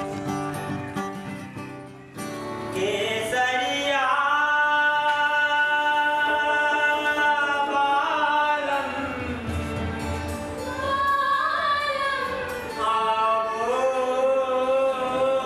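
Acoustic guitar strumming that stops abruptly about two seconds in, followed by a solo singer's voice in a folk song holding long, drawn-out notes that later bend and waver.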